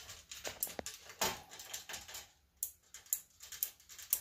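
Relays on a 5 V 8-channel relay board clicking as the starter tree switches its lights in sequence. A scatter of sharp clicks gives way, over the last couple of seconds, to a regular run about half a second apart.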